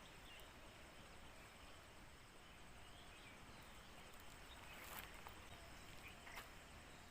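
Near silence: faint outdoor ambience, with a couple of faint clicks about five and six and a half seconds in.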